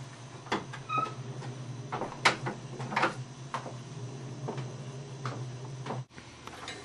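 Scattered light clicks and taps, one or two a second at uneven spacing, over a steady low hum. The sound drops out abruptly about six seconds in.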